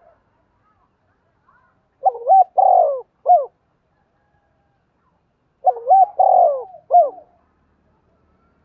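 Spotted dove cooing: two phrases of several swooping coos each, the first about two seconds in and the second about six seconds in. The last note of each phrase stands a little apart.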